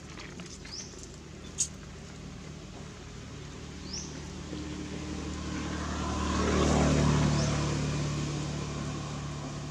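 A motor vehicle passing: its engine and tyre noise build to a peak about seven seconds in, then fade. A bird gives short rising chirps every few seconds, and there is one sharp click just under two seconds in.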